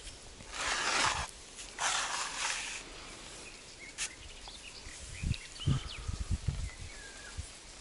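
Two bursts of rustling as reeds and grass are brushed by a fishing rod and arm, then a single sharp click and a run of dull low thumps from handling the rod.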